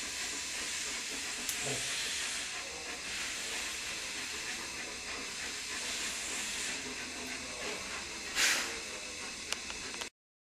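Steady hiss of background noise, with a short louder rush about eight and a half seconds in and a couple of faint clicks, cutting off suddenly near the end.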